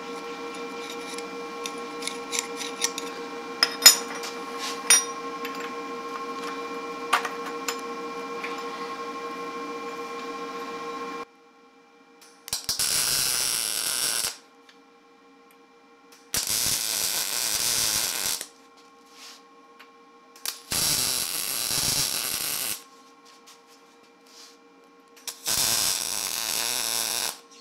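Steel half-ring pieces clinking as they are handled and fitted together, over a steady hum. About eleven seconds in, this gives way to a MIG welder tack-welding the steel rings: four welds of about two seconds each, with short pauses between.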